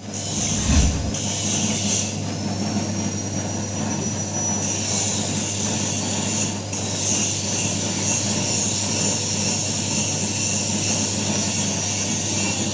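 Homemade taro slicing machine running steadily, its motor humming with a dense mechanical whirr, with a single knock about a second in.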